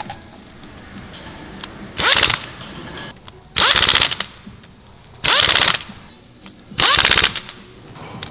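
Impact wrench hammering socket head cap screws tight into a steel flange, in four short bursts of rapid rattling hammering about a second and a half apart.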